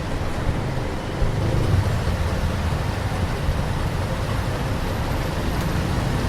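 Busy street traffic in Vietnam: a steady wash of engines and tyres with a deep low rumble, swelling slightly a second or two in as a vehicle passes close.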